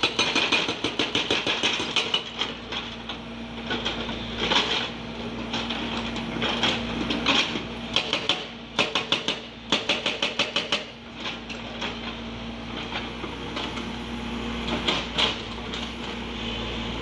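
Hydraulic breaker on a Hyundai crawler excavator hammering rock in repeated bursts of rapid blows, the longest burst about nine to eleven seconds in. The excavator's diesel engine hums steadily underneath throughout.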